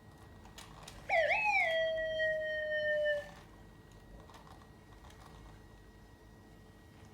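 Sony aibo robot dog's synthesized voice: one electronic tone that warbles up and down twice, then holds and slowly sinks for about two seconds before cutting off.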